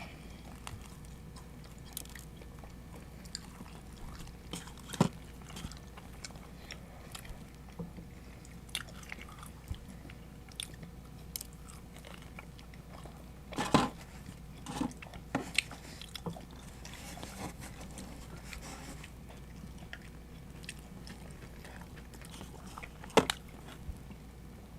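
Close-up chewing and biting of pizza: wet mouth noises and small crunches of crust, with a few louder sharp bites about five seconds in, near the middle, and near the end, over a low steady room hum.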